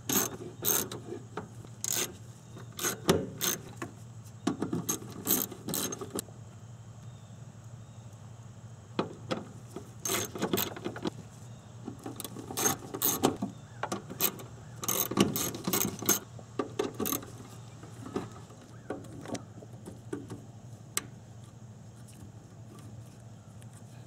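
Hand socket ratchet clicking in short runs as the small bolts of a fuel pump assembly's retaining plate are tightened in turn, with pauses between runs; near the end only a few faint ticks.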